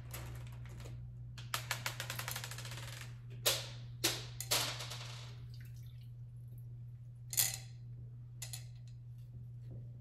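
Decorative pearl beads clicking and rattling as they are handled against glass: a quick run of dense clicks, then three sharp clinks with a short ring, then two single clicks. A steady low hum runs beneath.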